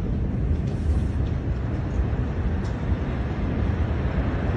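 Steady low rumbling noise with a few faint crackles and no single bang.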